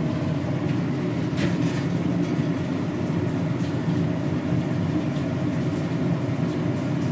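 Steady low hum of a running motor, unchanging throughout, with a faint click about one and a half seconds in.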